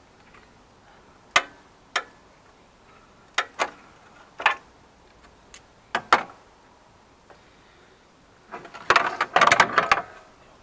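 Sharp metallic clicks and knocks, irregularly spaced, from a socket ratchet and the serpentine belt tensioner being worked on a Land Rover TD5 engine. About nine seconds in comes a dense burst of clattering as the old serpentine belt is pulled off the pulleys.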